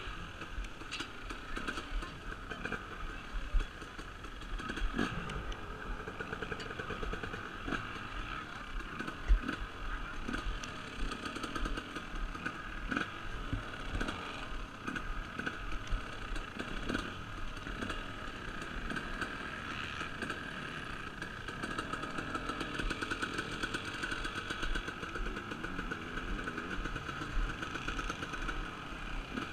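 2017 KTM 250 SX two-stroke single-cylinder motocross bike running at low, fairly steady throttle while ridden slowly, with a couple of sharper knocks in the first ten seconds.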